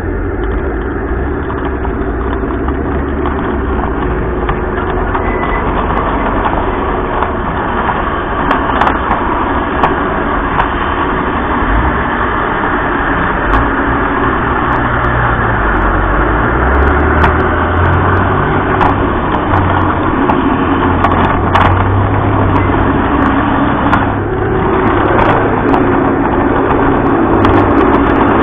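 Garden-railway model train running along its track, heard from on board: a steady rumble with many scattered clicks.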